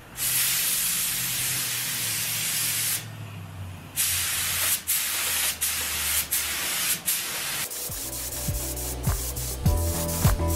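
Air spray gun spraying high-build primer: one long steady hiss for about three seconds, a short pause, then a series of shorter trigger-pull bursts. Background music with a beat comes in near the end.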